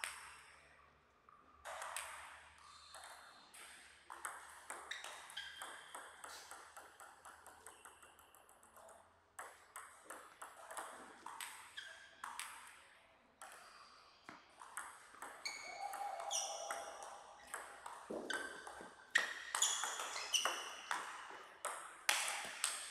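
Table tennis rallies: the celluloid-type ball clicking back and forth off the bats and the table, each hit sharp and briefly ringing. There is a short lull between points, and the hits near the end are the loudest.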